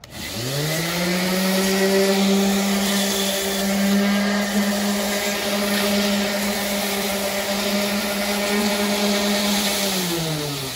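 Ryobi random orbital sander switched on, spinning up quickly to a steady hum as it sands the weathered wooden boards of a bench. It is switched off at the end, its pitch falling as it winds down.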